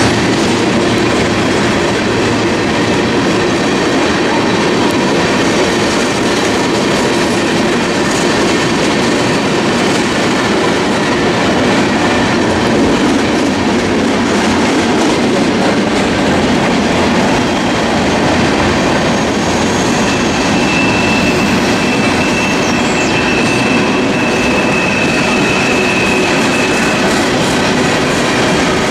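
Freight train of tank cars rolling past, with a steady loud noise of steel wheels running on the rails. A thin, high wheel squeal rises over it for several seconds about two-thirds of the way through.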